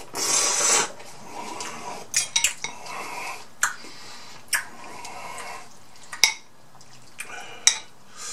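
A person loudly slurping ramen noodles for about the first second, then eating noises broken by a handful of sharp clinks of a metal fork against a glass bowl.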